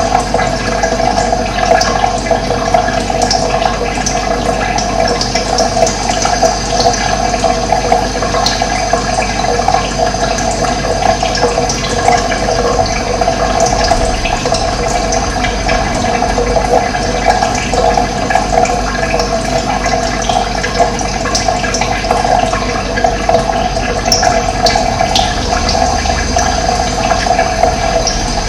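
Steady rushing of running water, with faint, scattered high bird chirps over it, a few clustered near the end.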